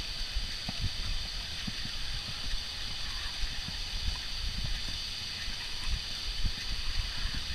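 Wind buffeting an outdoor microphone: an irregular low rumble with small bumps over a steady high hiss.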